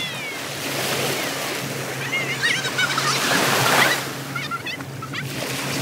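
Shallow sea water washing and splashing around people wading, with children's high-pitched voices calling out twice, about halfway through and near the end.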